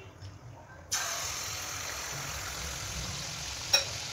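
Semolina pitha batter hitting hot oil in a pan: a sudden sizzle starts about a second in and carries on steadily as the batter fries. One sharp click near the end.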